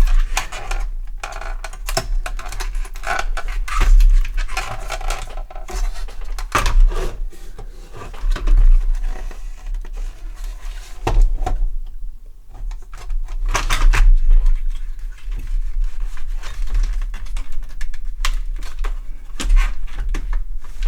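Parts of a Sinclair QL computer being worked apart by hand: irregular clicks, knocks and scrapes of plastic case and metal parts as the microdrive units are worked free of the case, with a quieter spell about halfway through.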